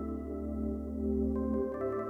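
Slow ambient music of held, sustained tones, shifting to a new chord about one and a half seconds in.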